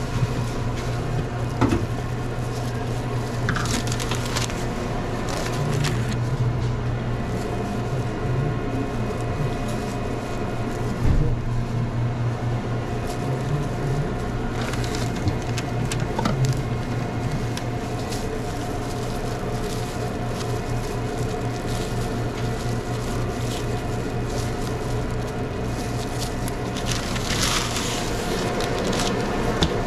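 Sandwich-making behind a fast-food counter: scattered light clicks, taps and rustles of food and wrappers being handled, over a steady low hum of kitchen equipment. A longer rustling burst comes near the end.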